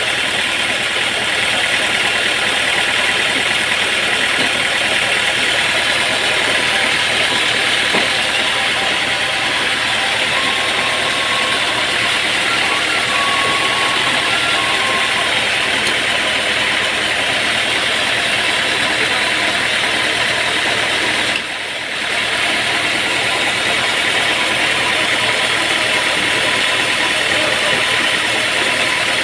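Sawmill machinery running steadily, with a dense, even noise that dips briefly about three quarters of the way through.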